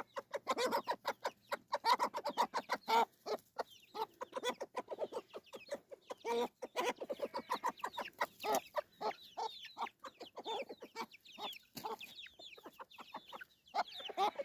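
A flock of free-range chickens clucking, many short calls overlapping throughout.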